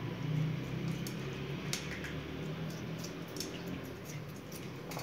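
Guinea pig gnawing and chewing, giving short crisp clicks at irregular intervals over a steady low hum.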